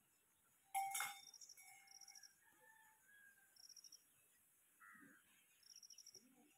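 Faint outdoor ambience: a high, rapidly pulsed insect chirp repeating every second or two, with bird calls, the loudest about a second in.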